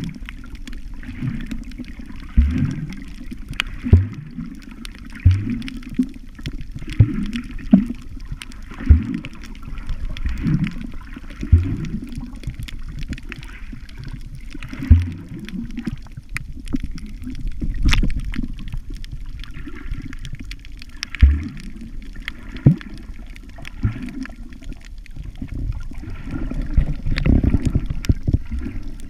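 Water heard underwater through a submerged action camera: muffled sloshing and gurgling, swelling and falling about every second and a half.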